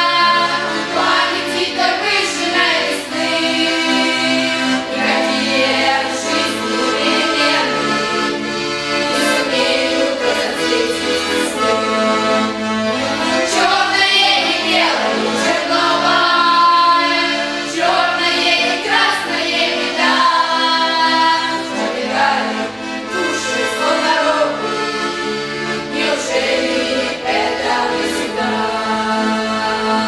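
A girls' choir singing a Russian song together to the accompaniment of a bayan, the Russian button accordion.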